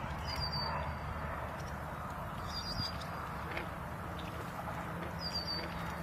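Canada geese feeding in shallow water, dabbling and splashing softly with their bills. Short high bird chirps come three times.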